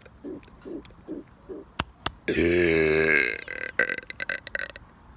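A man's long, loud burp starting about two seconds in. It holds a clear pitch that sags slightly for about a second, then breaks up into a crackling rattle. Before it come soft, short low pulses about twice a second.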